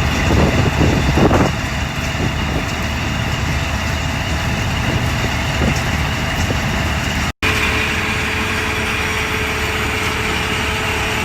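Diesel farm machinery engine running steadily, heavier and rougher in the first second or so. The sound cuts out for an instant about seven seconds in, then carries on with a steady whine over it.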